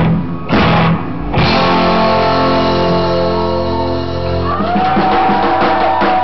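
Rock music with guitar: a few sharp chord hits, then a long held chord that changes about four and a half seconds in.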